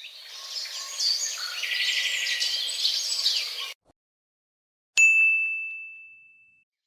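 Birds chirping and singing for about three and a half seconds, cut off abruptly. After a second of silence comes a single bright ding, struck once and ringing out as it fades.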